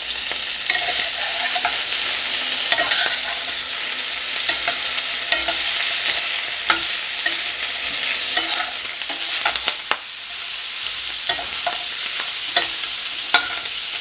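Sliced smoked sausage sizzling in oil in a stainless steel skillet on medium heat, with a slotted metal spoon scraping and clinking against the pan at irregular moments as the pieces are stirred.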